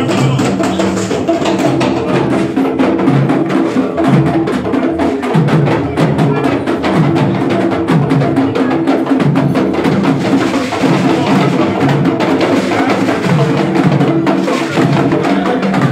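Drum-and-percussion music: many quick, sharp strokes over a repeating low drum pattern, with no break.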